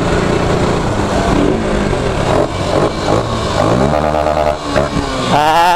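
Motorcycle engines running on the move, among them a Yamaha FZS single-cylinder fitted with a power filter. The revs rise about three and a half seconds in and hold for about a second, and a loud wavering tone comes near the end.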